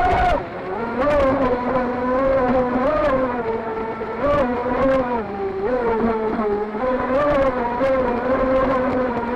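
Electric motor of a 38-inch radio-controlled boat whining as it runs, its pitch rising and falling as the throttle changes.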